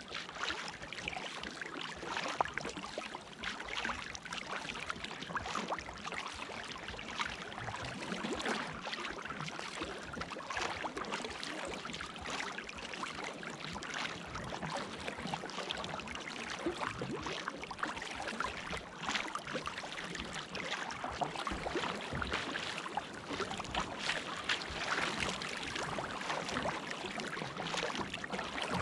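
Water splashing and rushing along a sea kayak's hull as it is paddled through light chop, with small irregular splashes from the paddle blades and wavelets.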